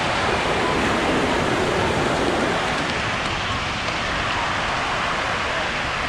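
Ocean surf breaking and washing up the beach in a steady rush of noise, with faint chatter from a crowd of beachgoers.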